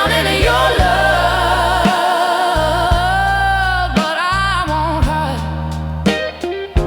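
Soul ballad: a singer holds long, wavering sung notes over bass and a regular drum beat.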